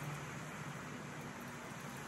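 Steady outdoor background noise: an even hiss with a faint low hum underneath.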